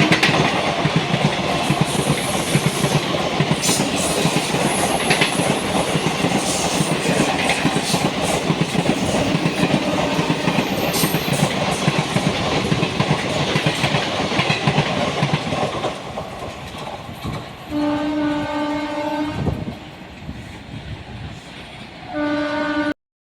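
Express train passing at speed: a loud rush of wheels and coaches with fast clicking over rail joints, fading after about sixteen seconds. Then a train horn sounds for about two seconds, and a shorter horn blast follows near the end before the sound cuts off.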